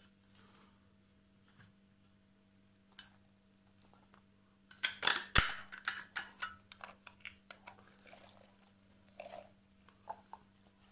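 Canned sweetcorn being tipped out of its tin into a salad bowl. After a quiet start, a cluster of soft, wet clicks and taps comes about five seconds in as the kernels tumble out and land, followed by scattered smaller taps.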